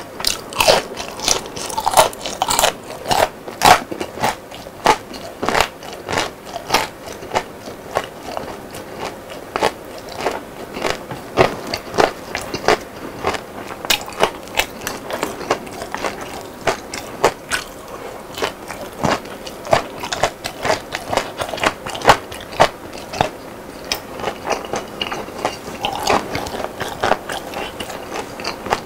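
Close-miked chewing of crispy battered fried food: a steady run of sharp, crisp crunches, a few each second.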